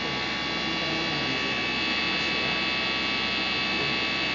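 Steady electrical machine hum, with many fixed high tones over an even noise.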